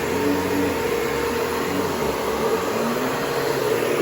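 Vacuum cleaner running steadily just after being switched on, its motor giving an even hum over a steady rush of air.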